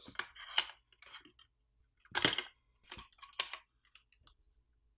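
Hard black plastic outlet covers being pulled out of an aluminium housing and handled: scattered clicks and light plastic-on-metal clatter, loudest about two seconds in.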